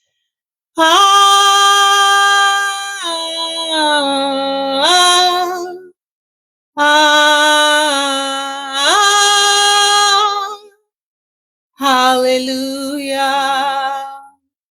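A single voice singing unaccompanied in worship. It sings three long phrases of held notes that step up and down in pitch, with complete silence between the phrases.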